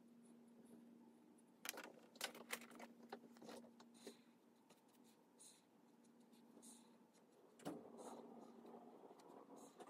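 Faint scratching of a black felt-tip marker drawing lines on paper, in short strokes with a few sharp ticks, over a low steady hum.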